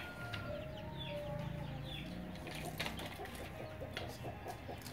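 Chickens clucking, with a few brief sharp knocks.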